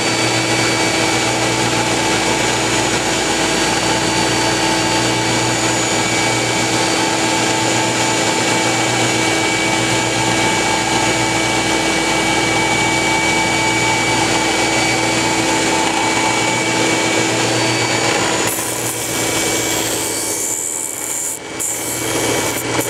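A homemade high-speed cane profiling machine runs while cutting a piece of contrabassoon cane, with its dust-extraction hose drawing air. It makes a steady motor whine over a rasping cutting noise. About eighteen seconds in, the rasping drops away and the sound becomes quieter and duller.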